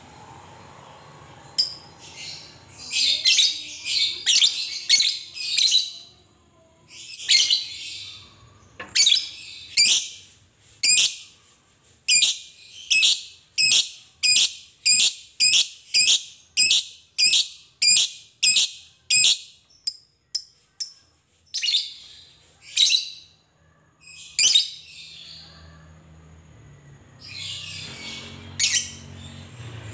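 Fischer's lovebird doing its long 'ngekek' chatter: shrill, rapid bursts of calls, then a long run of evenly spaced short calls about two a second, broken by pauses, with a few more bursts near the end.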